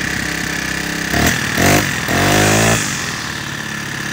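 Toyama TBC 40 four-stroke brushcutter engine running just after a cold start. It runs steadily, with a few short rises in speed between about one and three seconds in, then settles back.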